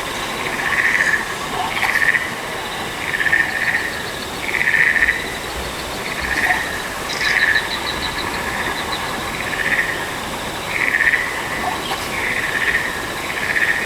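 A chorus of frog-like croaking calls, one pulsed call about every second and a half, with a faint, fast trilling higher up.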